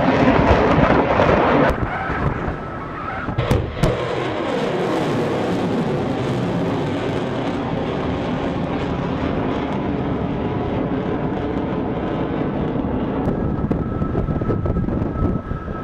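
Ship-launched missile in flight: its rocket motor makes a loud, steady rushing rumble, with sudden jumps in the sound about two and four seconds in.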